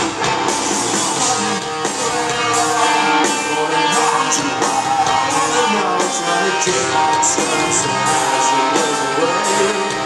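Live rock band playing, with electric guitars, drums and a male lead vocal, heard loud through the hall's PA from the audience.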